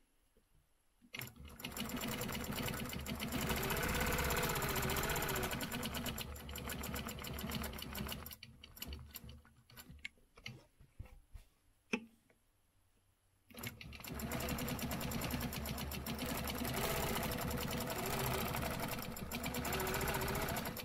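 Quilting machine stitching along an acrylic ruler for ruler-work quilting. It starts about a second in and runs steadily, then stops and starts in short spurts with a few clicks as the ruler is repositioned midway, then runs steadily again.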